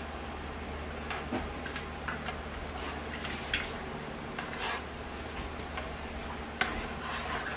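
Irregular light clicks and knocks of a utensil against a soup pot while cornstarch slurry is stirred into the soup, over a steady low hum.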